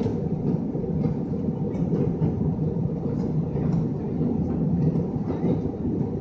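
Airbus A320 cabin noise in flight: a steady low rumble of engines and airflow, with faint irregular rattles from the cabin as the airliner flies through turbulent cloud.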